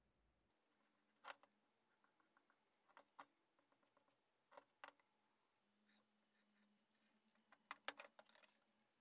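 Faint, sparse clicks and taps of a paint marker and a steel ruler against a square steel tube as it is marked out, with a quick cluster of clicks near the end.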